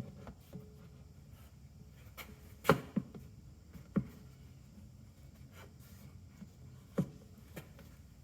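A few sharp knocks and clunks of things being handled, the loudest about a third of the way in and another near the end, over a quiet background with the engine off.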